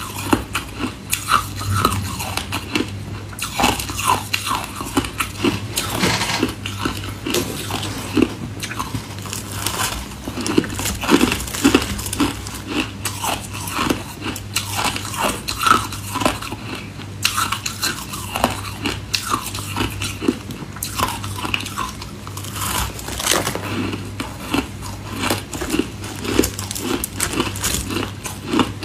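Biting and chewing of crumbly, snow-like packed ice: a dense, irregular run of crunches and crackles as the ice is bitten off and ground between the teeth.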